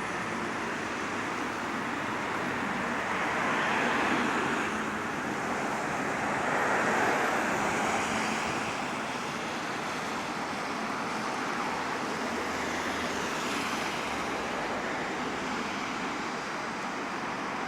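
Bus running along the road: steady engine and road noise, swelling louder twice, about four and about seven seconds in.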